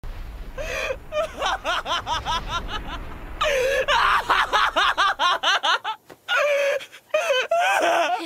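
A young man's hysterical, breaking laughter in Japanese anime voice acting: rapid repeated bursts of laughing that rise and fall in pitch, over a low rumble that fades out about halfway through.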